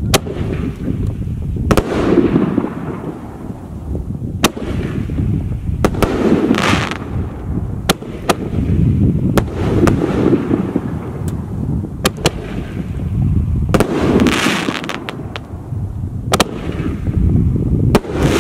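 Consumer reloadable canister shells fired from mortar tubes and bursting in the air: a string of sharp, irregularly spaced bangs over a steady low rumble, with two longer hissing bursts, one about six seconds in and one near fourteen seconds.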